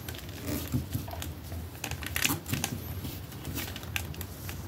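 Hands posing a large plastic action figure: scattered clicks, creaks and rubbing of its plastic joints and parts as the limbs are moved.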